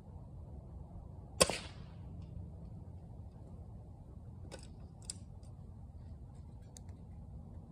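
A single air rifle shot: one sharp crack about a second and a half in, with a short fading tail. Two lighter clicks follow a few seconds later.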